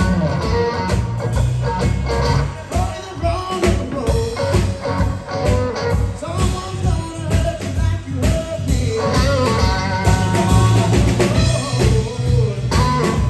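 Live rock band playing: a Fender Stratocaster electric guitar, bass and drum kit keeping a steady beat, with a young man singing over them.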